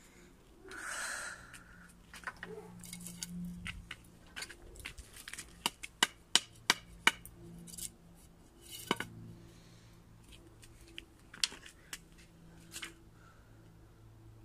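Flip-flops slapping on paving stones during walking: a run of sharp snaps, the loudest being a quick series of five about halfway through. A short rustle comes about a second in.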